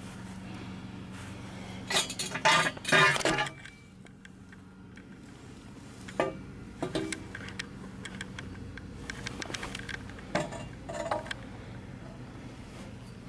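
Metal motorcycle engine parts clinking and clattering as they are handled during teardown of a Yamaha YZF600R Thundercat engine: a cluster of loud clinks about two seconds in, then scattered lighter clicks, over a steady low hum.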